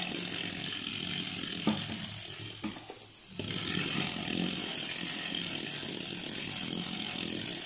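Mechanized Hot Wheels drift car's small drive mechanism and gears whirring steadily as its rear wheels spin and slide across the tabletop.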